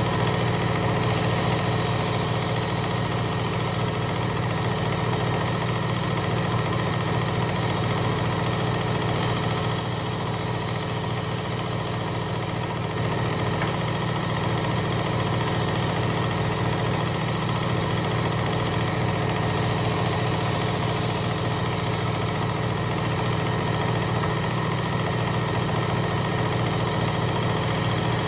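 Work Sharp Ken Onion Elite belt sharpener running steadily, with a knife edge drawn across the abrasive belt in passes: a high grinding hiss lasting about three seconds, heard four times, about every nine seconds. The passes work the burr on the edge.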